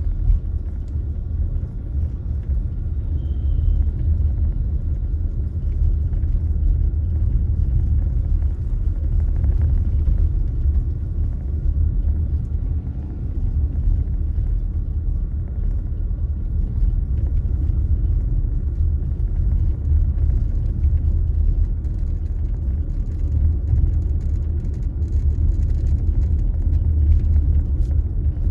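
Steady low rumble of a car driving along city streets: road and engine noise with no sharp events.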